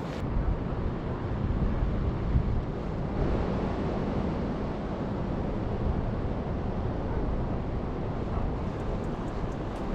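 Steady wind buffeting the microphone, a low rumbling rush, with ocean surf beneath it.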